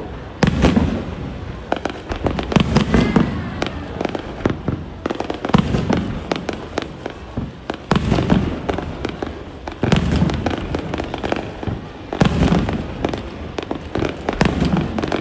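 Fireworks display: heavy booms of aerial shells bursting every two seconds or so, with dense rapid crackling between them.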